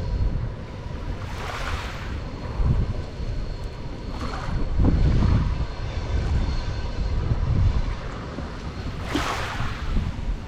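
Small sea waves washing onto the shore, three washes about four seconds apart, with wind rumbling on the microphone.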